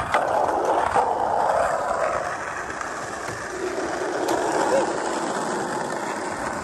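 Skateboard wheels rolling steadily, with a sharp click just after the start and another about four seconds in.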